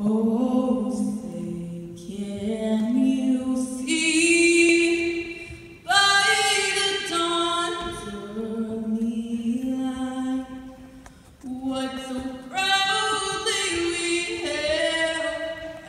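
The national anthem sung unaccompanied, in long held notes with short breaks between phrases.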